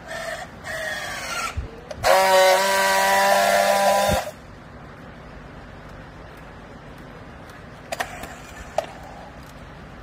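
Battery-powered handheld strapping tool on a plastic bale strap: its motor whirs in short, wavering pulses while tensioning the strap, then gives a loud steady buzz for about two seconds as it friction-welds the strap ends. Two light clicks follow near the end.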